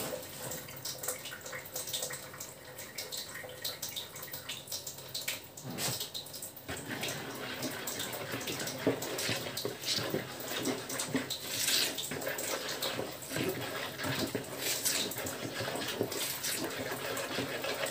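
A spoon stirring and scraping flour into a wet yeast dough in a plastic bowl, then hands mixing the dough, with irregular scraping and stirring noises that grow busier about six seconds in.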